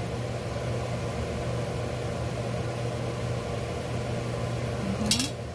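A steady machine hum, with one sharp clink near the end.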